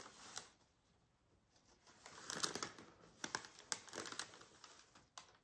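Small paintbrush stroking and dabbing paint onto a canvas: faint, dry scratchy rasps in quick clusters, mostly from about two seconds in.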